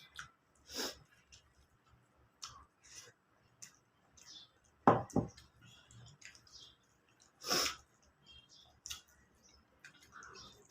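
Someone eating a rice meal: scattered small mouth clicks and chewing noises. There are two sharp knocks about five seconds in and another louder short noise a couple of seconds later.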